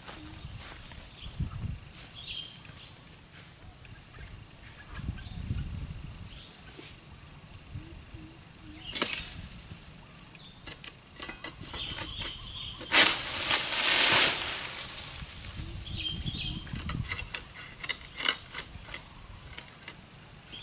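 Insects, crickets or cicadas, chirring steadily in a high pitch, with scattered light clicks and a few low thumps. About two-thirds through, a loud rustling scrape lasts a second or so.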